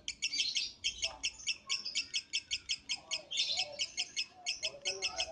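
Lovebird singing a long, fast run of shrill chirps, about seven or eight a second, starting abruptly.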